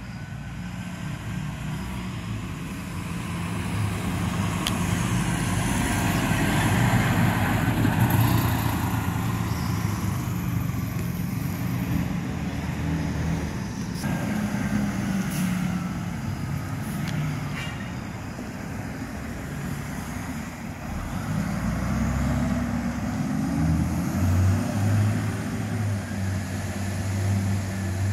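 Fire engine's diesel engine running as the apparatus drives past and pulls away, loudest about eight seconds in. About 22 seconds in, a second vehicle's engine picks up, rising in pitch as it accelerates away.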